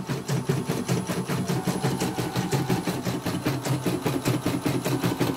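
Portable CNY embroidery machine, casing off, stitching a design: a rapid, even clatter of needle strokes, about ten a second. It is a test run after the X and Y sensors and the motor were replaced and the machine was cleaned of tangled thread.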